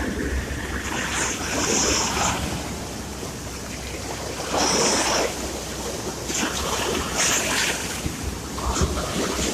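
Sea surf: waves washing in and hissing, with louder surges about a second in and again around the middle. A low wind rumble on the microphone runs under it.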